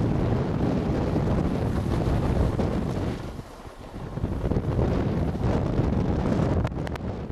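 Wind buffeting the camera microphone: a loud, steady low rumble that drops away briefly about three and a half seconds in. A few faint clicks sound near the end.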